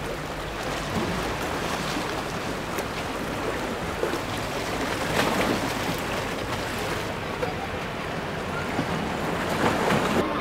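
Sea water washing and splashing against shore rocks: a steady rush with louder surges about five seconds in and again near the end.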